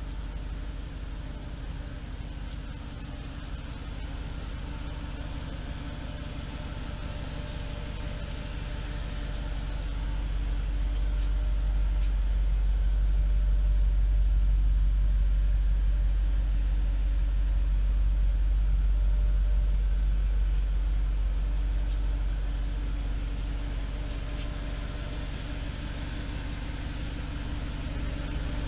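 Audi R8's mid-mounted engine idling steadily, louder for a stretch in the middle as the microphone passes through the cabin close to the engine.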